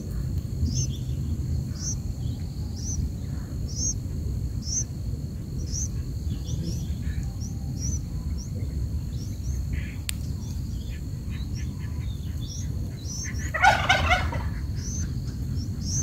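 Bird calls at a nest: short, high chirps repeating about once a second over a low steady rumble, with a louder burst of chattering calls about fourteen seconds in.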